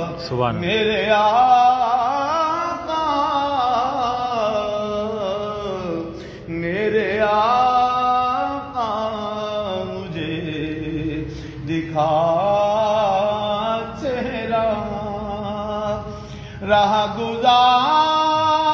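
A man reciting an Urdu naat in a melodic, chant-like style, unaccompanied by any clear instrument. His voice is held in long, wavering phrases of a few seconds each, with brief pauses for breath.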